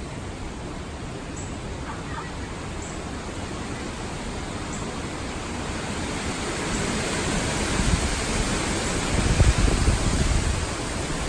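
Hurricane wind and rain as a steady rushing hiss that builds about halfway through. Gusts buffet the microphone with low rumbles near the end.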